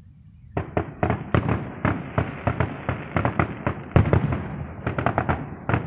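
Aerial fireworks bursting: a rapid, irregular string of sharp bangs that starts about half a second in. The loudest bang comes around four seconds in.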